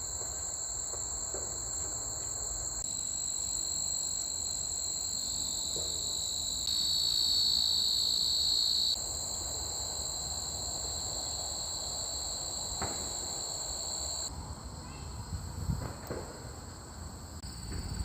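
A steady chorus of insects, a continuous high-pitched ringing in two pitches, growing louder for a couple of seconds about a third of the way in.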